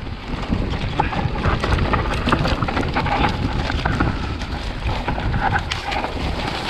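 Vitus Sommet CRX mountain bike rolling fast down a dirt singletrack. Tyres run over rough ground and the bike rattles and clicks over bumps, under a steady rumble of wind on the camera microphone.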